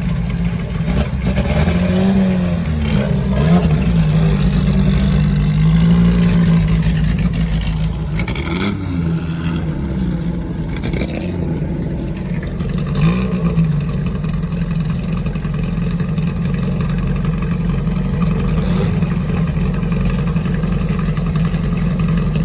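Historic racing car engines running near idle, blipped several times so the pitch swings up and back down, then holding a steady idle for the second half.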